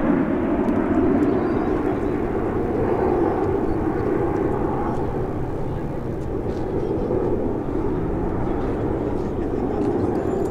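Jet noise from a formation of nine Canadair CT-114 Tutor jet trainers, each with a single J85 turbojet, passing overhead: a steady rushing sound that eases slightly toward the end.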